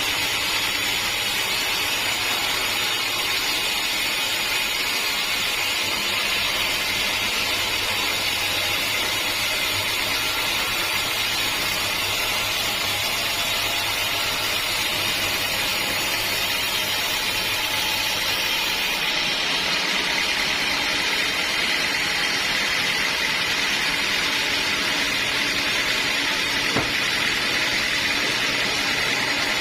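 Sawmill running steadily: a low engine hum under a strong, even hiss. About two-thirds of the way through, the low hum drops away while the hiss carries on, and a single short click comes near the end.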